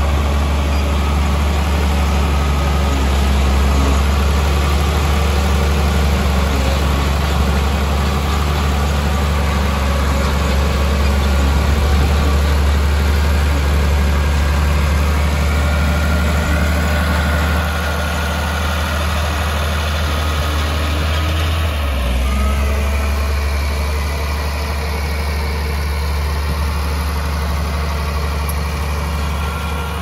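Heavy diesel engine of earthmoving machinery running steadily with a deep hum, its note shifting briefly about two-thirds of the way through.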